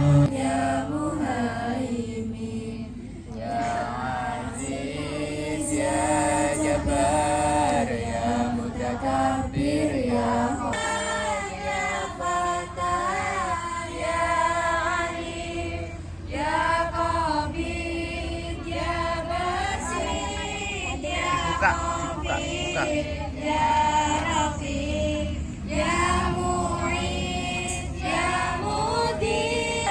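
A group of children's voices chanting together in unison, a drawn-out melodic Arabic Islamic recitation sung as a choir.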